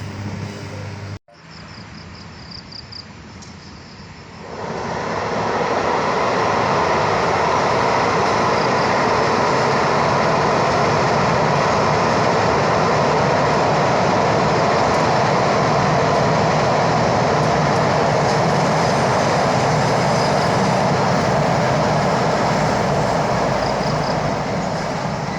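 A train passing close by: a loud, steady rumble that swells up about four seconds in and holds for some twenty seconds before easing off near the end.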